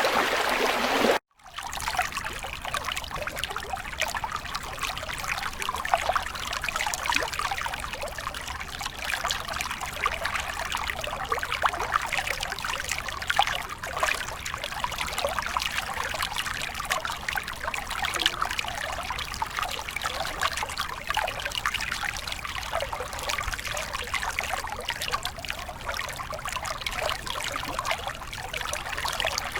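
Stream water trickling and babbling steadily. About a second in, a louder rush cuts off abruptly and a lighter, even trickle takes over.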